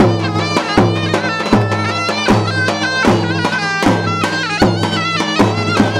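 Traditional folk dance music for a line dance: an ornamented, reedy wind-instrument melody over a steady low drone, with a drum beat about every three-quarters of a second and lighter strokes in between.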